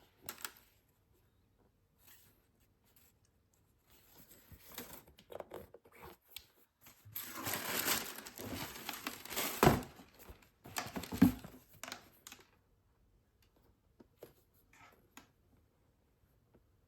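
Packaging paper crinkling and rustling in bursts as it is handled and pulled open, with two sharp knocks in the middle.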